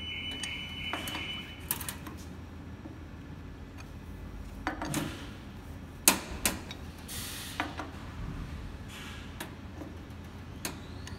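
Hand wrench clicking and scraping against the steel blade screws of an electric paper cutter as they are given a final tightening, in irregular metal clicks with a sharp one about six seconds in. A high steady tone stops about a second and a half in, over a low steady hum.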